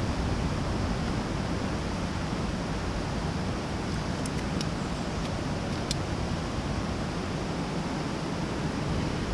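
Steady rush of a mountain trout creek's flowing water, with a few faint clicks about halfway through.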